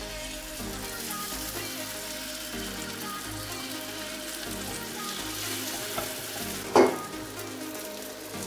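Pancake batter sizzling in hot non-stick frying pans as it is squeezed in from squeeze bottles, with a single loud knock near the end.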